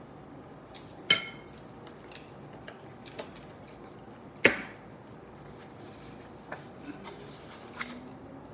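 Table sounds of eating seafood: scattered light taps and rubbing, with two sharp clinks, one about a second in with a brief ring and a louder one about four and a half seconds in.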